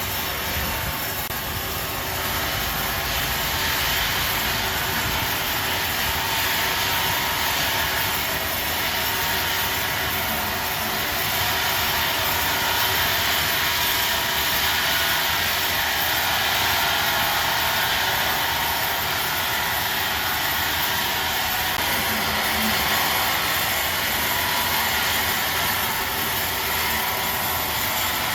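Large sawmill saw machine running with a steady, loud mechanical noise that does not let up.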